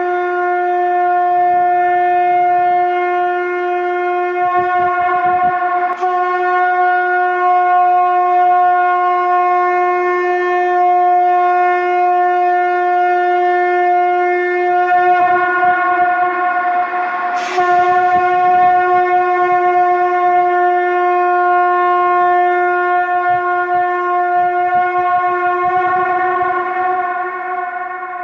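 Shankh (conch shell) blown in one long, steady held note rich in overtones, with a brief break about two-thirds of the way through and a little softer near the end.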